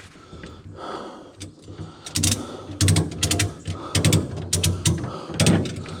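Ratchet tie-down strap being cranked tight, its pawl clicking in a series of short bursts starting about two seconds in, as the strap is tensioned over a load.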